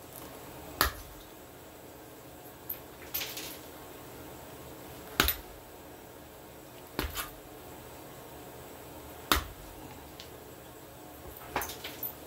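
Pressure flaking of a knapped blade: sharp clicks, each a flake snapping off under a hand-held pressure flaker, coming every second or two.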